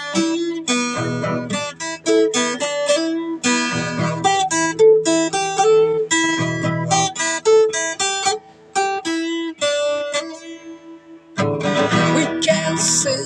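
Acoustic guitar playing a melody of picked notes over a ringing bass note. The playing thins and softens for a few seconds past the middle, then fuller strummed chords come in near the end.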